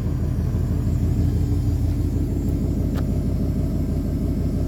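GM truck V8 engine idling steadily and evenly, firing on all eight cylinders after being freed from a seizure caused by oil loss. A single sharp click about three seconds in.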